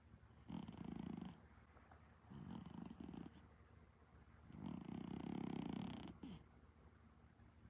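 Exotic Shorthair cat snoring softly. Three low, fluttering snores come about two seconds apart, and the third is the longest.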